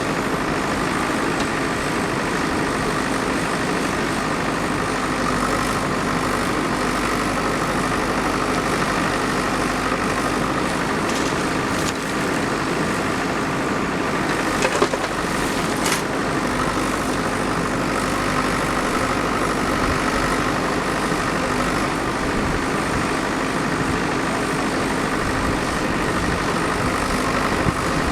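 Diesel engine of heavy machinery running steadily, with a few short knocks around the middle.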